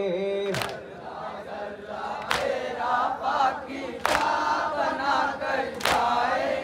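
Mourners beating their chests in unison (matam): a sharp collective slap about every second and three quarters, with a crowd of men chanting and calling between the strikes. A held sung note of the noha ends about half a second in.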